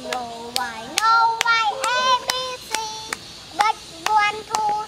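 Young children singing a sing-song tune while clapping their hands along, the claps sharp and uneven in timing.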